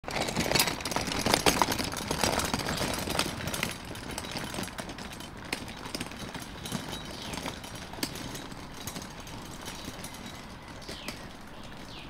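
Folding camping wagon rattling and crunching as its wheels roll over a rough dirt-and-gravel track. The rattle is loud for the first few seconds, then fades to scattered clicks as the wagon is pulled away.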